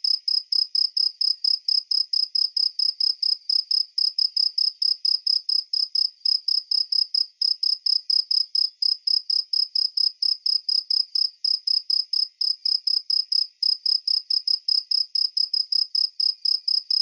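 Cricket chirping sound effect: a steady, even run of high-pitched chirps, about five a second, unchanging in pitch and rhythm.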